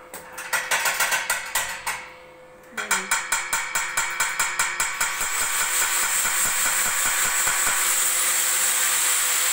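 Rapid metal tapping on a steel grille frame, in two quick runs of about six taps a second with a short pause between. In the second half a steady hiss takes over.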